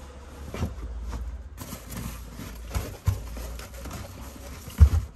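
Scattered knocks and thumps of a portable tyre compressor being handled and fitted into a car's storage space, the loudest thump near the end, over a steady low rumble.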